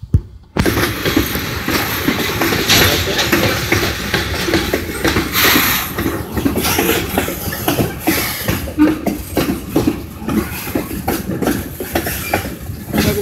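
Freight train cars, covered hoppers and tank cars, rolling past close by: steel wheels rumbling on the rails with a steady hiss and a stream of clicks and knocks from the wheels and couplers. The noise starts suddenly about half a second in.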